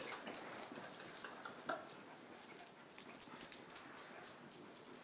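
Small dogs breathing hard and scuffling at play, tired out from a long romp.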